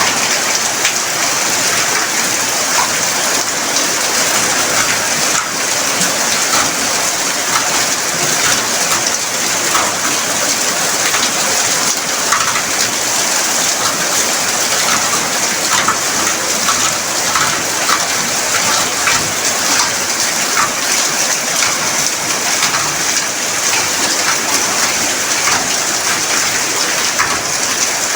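Heavy rain pouring down steadily, a dense even hiss with many small splashes of drops.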